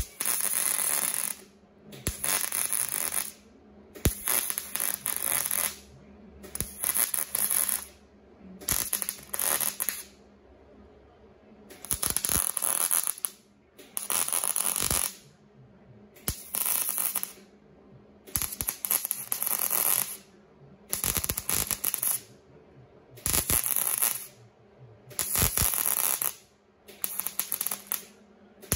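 MIG welder crackling in about a dozen short bursts of a second or so each, with brief pauses between, as small holes in a truck's sheet-steel rocker panel are welded shut.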